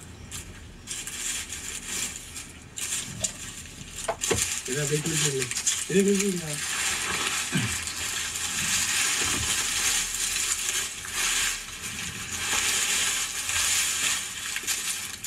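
Small red onions (shallots) tumbling and rattling out of cut-open mesh sacks onto a sack on the ground, the clatter getting denser and steadier about halfway through. A man hums twice briefly in the middle.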